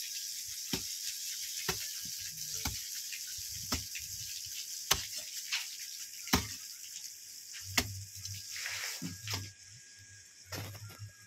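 Metal shovel blade chopping and scraping into dry earth, a sharp strike every second or so over a steady hiss.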